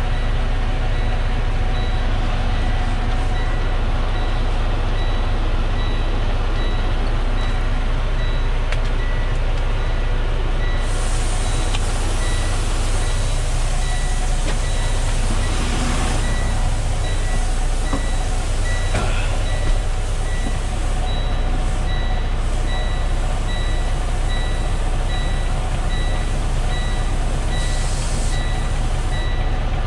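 Freightliner 122SD dump truck's diesel engine idling steadily, heard from inside the cab, with a high electronic beep repeating over it.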